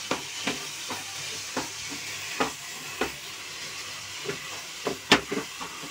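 Grated raw papaya frying in ghee and cream in a nonstick kadhai, sizzling steadily while a wooden spatula scrapes and knocks against the pan again and again, with the loudest knock about five seconds in.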